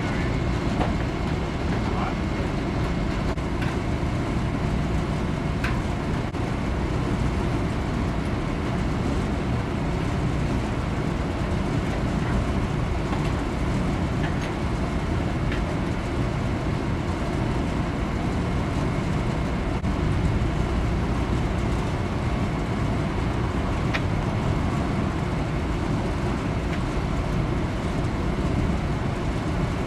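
A steady low rumble throughout, with a few faint clicks, two of them about 6 and 24 seconds in.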